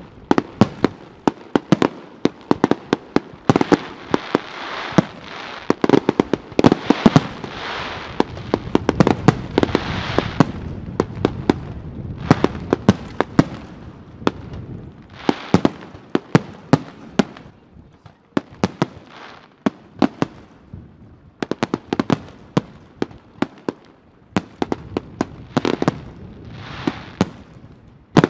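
Aerial firework shells bursting in quick succession: a dense run of sharp bangs with a noisy rush beneath them in stretches. The bangs thin out for a few seconds about two-thirds of the way through, then pick up again near the end.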